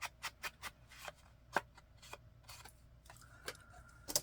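Paper and small craft items being handled on a tabletop: about a dozen light, irregular taps and clicks, the loudest about a second and a half in, with a faint steady high tone in the last second.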